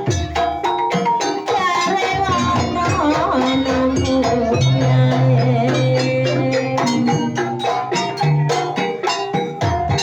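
Traditional East Javanese gamelan-style dance music: a percussion ensemble playing quick, regular strokes over held pitched tones, with a wavering melodic line rising above it about two to three seconds in.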